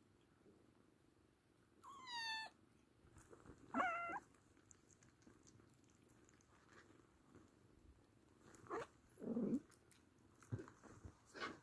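A nursing Oriental cat and her kittens: faint steady purring under two short, high mews about two and four seconds in, the first falling in pitch. Later a brief low cry and a few small clicks.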